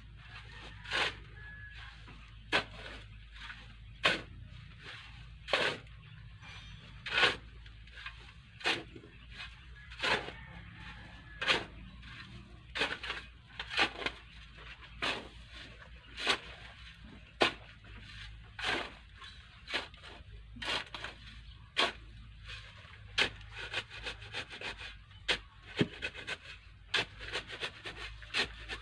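Steel shovel blade scraping and digging into a pile of sand, one short stroke about every second and a half, as the sand is turned over by hand.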